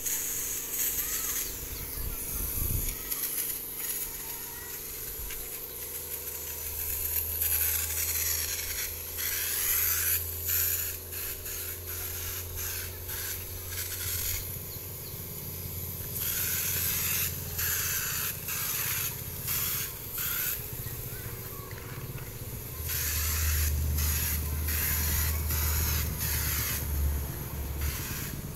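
Compressed-air paint spray gun hissing in repeated bursts as the trigger is pulled and released, spraying paint onto wooden speaker cabinets. A low steady drone runs underneath for long stretches.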